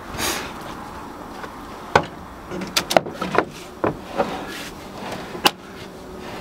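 A heavy 12-volt battery being slid and shifted into place on a wooden board in a tractor's battery compartment: scraping and a string of sharp clunks and knocks, bunched between about two and five and a half seconds in.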